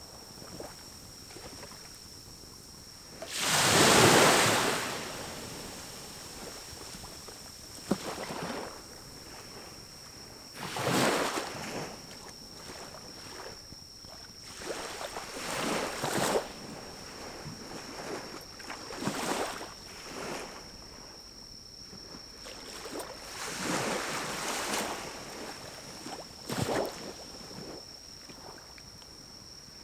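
Pine-cone fire burning in a small wood-burning stove, with repeated whooshing swells of rushing air noise lasting a second or two, the loudest about four seconds in, and a few sharp pops.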